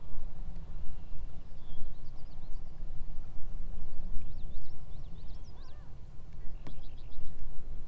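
Birds calling: a few short warbling chirps midway and a quick run of short high notes near the end, over a steady, uneven low rumble of wind buffeting the microphone.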